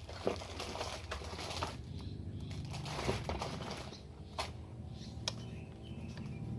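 Packaging being handled: rustling and crinkling with scattered sharp clicks and knocks, over a steady low hum.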